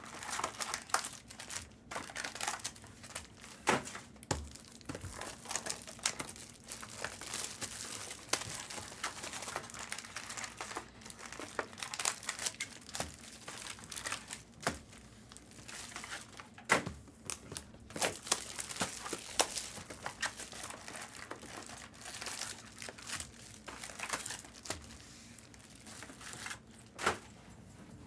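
Trading card pack wrappers and box packaging crinkling and tearing as boxes and packs are opened by hand, in dense irregular crackles.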